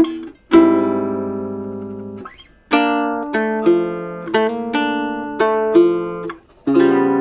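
Godin Multiac Mundial nylon-string electric-acoustic guitar playing slow chord voicings, each chord plucked and left to ring and fade, with two short breaks between phrases.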